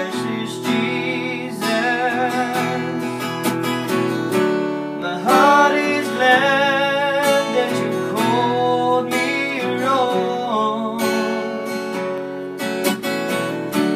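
Acoustic guitar strummed steadily, with a man singing long held notes over it in a slow worship song.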